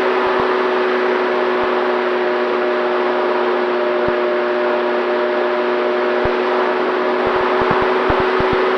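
Electric pusher motor and propeller of an FX-79 flying-wing RC plane running at a steady throttle, a constant hum over rushing air, with occasional brief low thumps.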